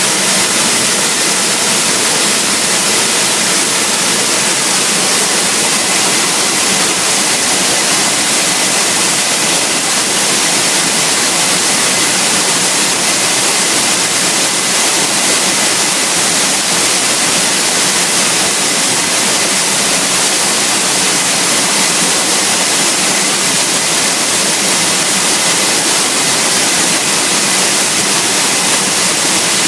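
Waterfall rushing, a loud steady roar of falling water heard close up.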